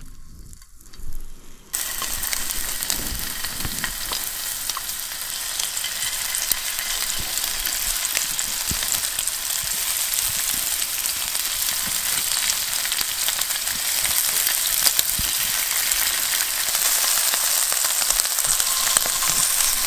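Chunks of duck breast frying in oil in a nonstick frying pan on a portable gas stove: a steady sizzle with fine pops and crackles. It starts suddenly about two seconds in and grows a little louder toward the end.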